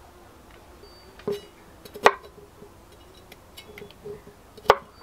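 Kitchen knife cutting a bitter gourd (ampalaya) on a wooden cutting board: a few sharp knocks of the blade meeting the board, the loudest about two seconds and four and a half seconds in, with faint clatter between.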